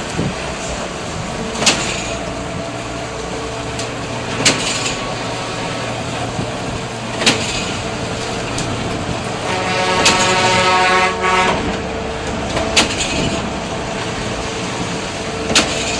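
Concrete mixer pump running: a steady engine drone with a sharp clank about every three seconds, typical of the pump's cylinders changing stroke. A pitched, horn-like tone sounds for about a second and a half near the middle.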